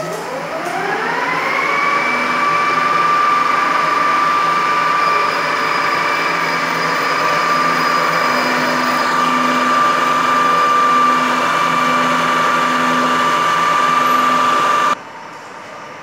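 Centre lathe running up to speed, its whine rising over about two seconds, then running steadily with a high whine while a file is held against the spinning workpiece. The sound cuts off abruptly about a second before the end.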